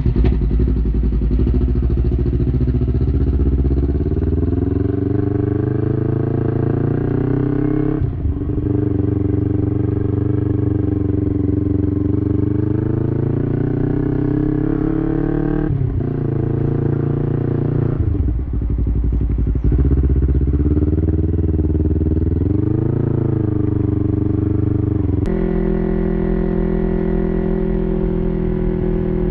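Yamaha YZF-R3's 321 cc parallel-twin engine through an Arrow Pro-Race full exhaust system with no muffler, on the move. The engine note climbs and falls several times, with abrupt drops between runs.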